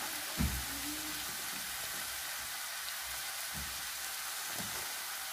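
Onions and minced meat frying in a pan, a steady sizzle. A soft low thump comes about half a second in, and two fainter ones follow later.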